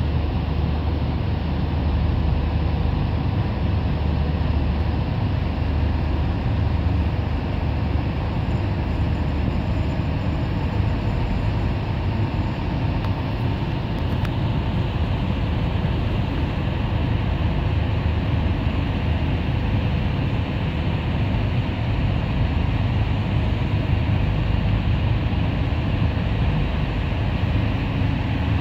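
Boat engine running steadily with an even low drone and faint steady tones above it, mixed with rushing water and wind noise.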